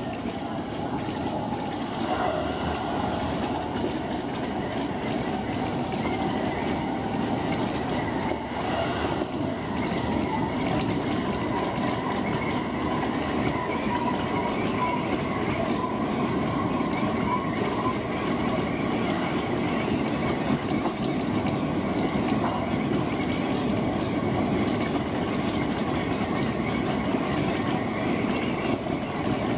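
Seibu 30000 series electric commuter train running steadily along the track, heard from inside the front car: an even rumble of wheels on rail with a faint whine that holds a steady pitch.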